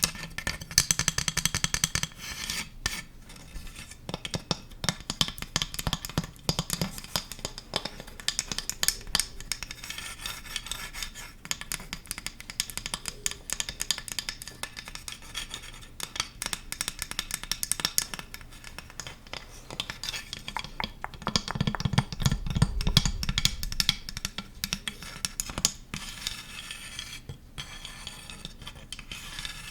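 Close-miked ASMR clicking and tapping, fast and continuous, with rapid sharp clicks and some scraping. A run of heavier, deeper thuds comes about two-thirds of the way through.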